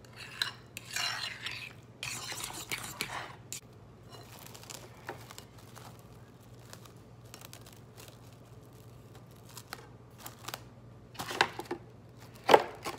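A spoon stirring and scraping in a bowl, with utensil clinks against dishes and a few sharp clanks near the end.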